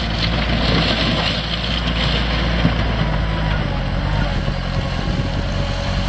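Diesel engine of a 2000 Bobcat 864 track skid steer running steadily as the machine works into a pile of soil.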